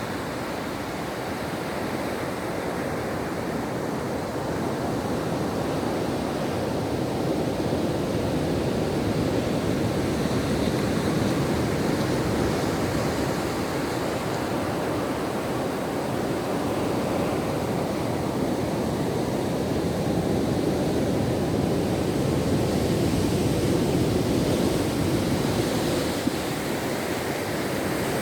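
Ocean waves washing onto a shore: a continuous wash of surf that slowly swells and eases.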